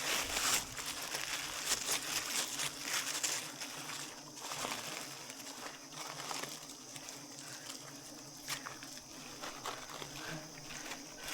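Irregular rustling and crinkling handling noise with scattered clicks, busier in the first few seconds, over a steady high-pitched drone.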